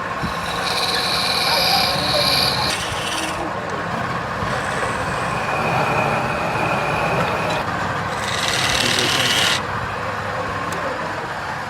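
Wood lathe running with a tool cutting into the spinning wood: a steady motor hum, with a harsh, high scraping cut from about a second in to three and a half seconds, and again around eight to nine and a half seconds.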